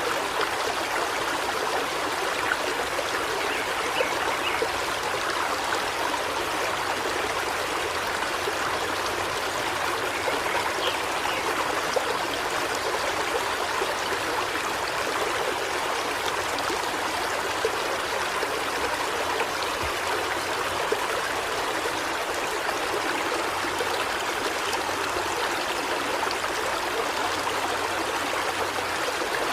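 River water flowing steadily, a constant, even rush and babble.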